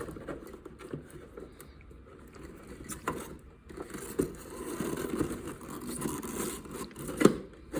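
Light scraping and handling noise with a few sharp knocks, about three seconds in, four seconds in and near the end; no motor is running.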